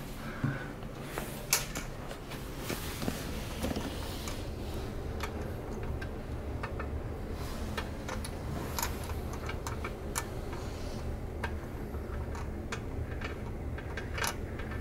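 Scattered small clicks and light scrapes of nuts being hand-tightened onto the brass closet bolts at a toilet's base, over a steady low hum.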